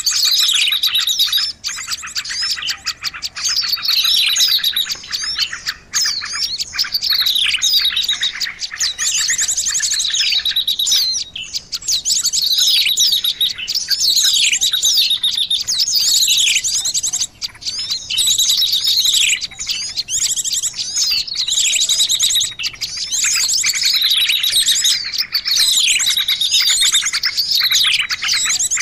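Mixed calls of many small songbirds layered together as a bird-trapping lure recording: continuous rapid high trills with down-slurred chirps repeating every second or two.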